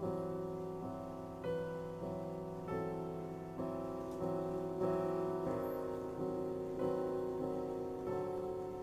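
Slow background piano music: notes and chords struck roughly once a second, each dying away before the next.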